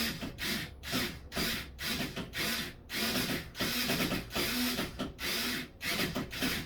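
Shower valve cartridge puller being turned by hand: short rasping metal strokes, about three a second, as the puller draws the old valve cartridge out of the valve body.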